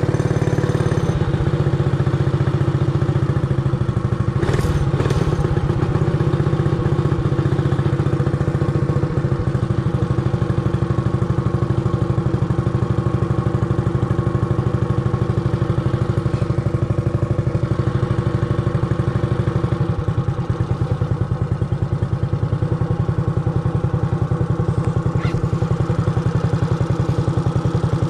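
Realtree RT200 mini bike's 196cc single-cylinder four-stroke engine, with a custom-made exhaust, idling steadily at an even, rapid pulse. A brief knock sounds about four seconds in.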